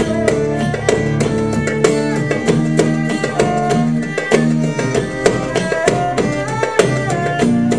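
Live band music: rapid hand-drum strokes under a bowed string melody with sliding notes, accompanied by acoustic guitar.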